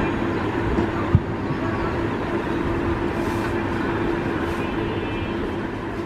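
Steady mechanical rumble with a constant low hum, like nearby traffic or a machine running, with a single sharp knock about a second in.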